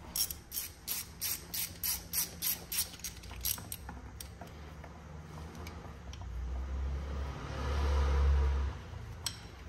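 A ratcheting wrench clicking in a quick, even run of about three to four clicks a second as a rear brake caliper bolt is turned. A low rumble follows later on.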